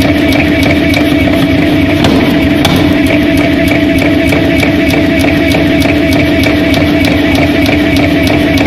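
150 kg air forging hammer running with a steady, very loud drone, its ram striking a red-hot metal billet on the anvil in a rapid even rhythm of about three blows a second.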